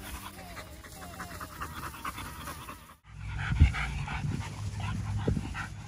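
American bully dog panting in quick, even breaths. The panting breaks off briefly about halfway and resumes louder, with a sharp thump just after.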